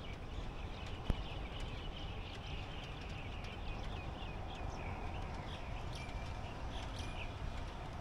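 Small birds chirping in quick, repeated high chirps over a low, steady background noise, with a single click about a second in.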